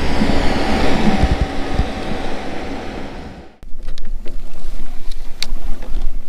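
Wind buffeting the microphone, a loud rushing noise with gusty low rumble that fades and cuts off abruptly about three and a half seconds in. After that comes quieter low wind rumble with a few faint clicks.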